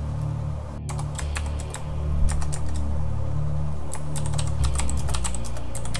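Computer keyboard typing: a steady run of quick keystroke clicks, coming thicker in the second half, over a low steady hum.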